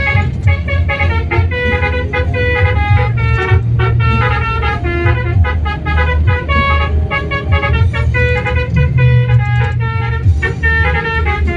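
Bus telolet horn, a set of multi-note air horns, playing a quick tune of short tooting notes over the low drone of the bus.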